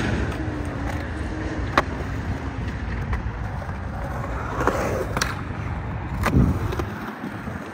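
Hard skate wheels rolling on concrete, a steady low rumble, with sharp clacks of board or deck impacts about two seconds in, around five seconds and just after six seconds.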